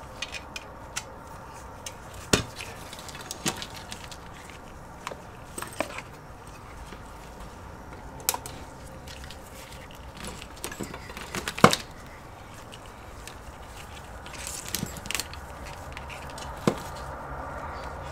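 Scattered clicks and light clatter of cables and plugs being handled on a workbench. The sharpest knock comes a little under twelve seconds in, with brief rustling a few seconds later.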